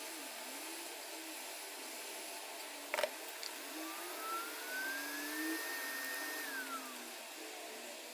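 Hot-air rework gun blowing steadily while four surface-mount resistors are swapped on an inverter air-conditioner's outdoor control board. There is a sharp click about three seconds in, and a faint whistle that rises, holds, then drops around the middle.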